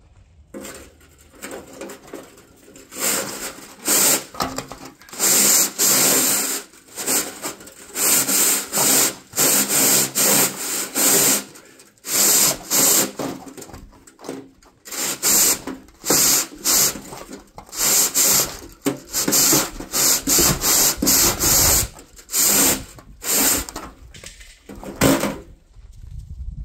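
Chimney sweep's brush scraping up and down inside the chimney pipe in a long run of rapid rasping strokes, each lasting about half a second to a second. The strokes stop shortly before the end.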